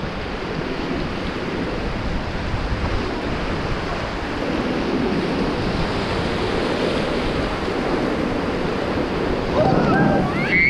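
Rushing white water of the Beas river, a steady loud wash with wind buffeting the microphone. A person's voice gives a brief rising shout near the end.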